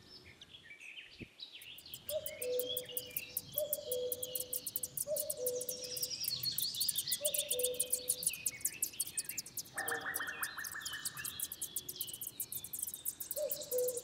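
Spring bird chorus: several small birds chirping and trilling rapidly, with a low two-note falling call repeated about every second and a half and a short buzzy rattle about ten seconds in.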